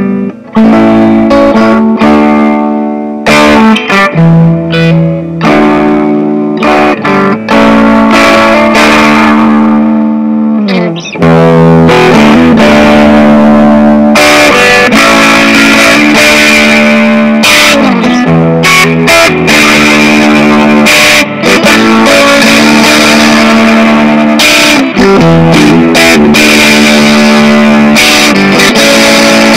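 Squier Mini electric guitar played through effects, picking a repeating riff of loud, sustained low notes.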